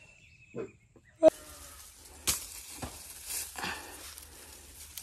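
A sharp click about a second in, then dry leaves and twigs rustling and crackling as leafy branches are pulled and bent, with several sharp snaps.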